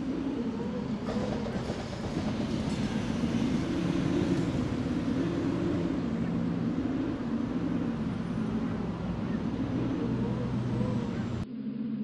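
A dense, steady low rumble of vehicle noise that cuts off suddenly near the end.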